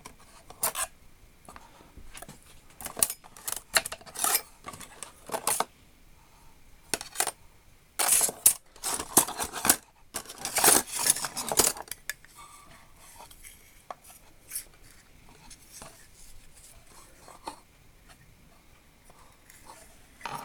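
Small metal measuring tools, mostly steel rules, clinking and clattering against each other as they are handled and moved about in a drawer. Irregular sharp clicks and rattles come in bunches, busiest about a third and half of the way through, then thin out to a few light taps.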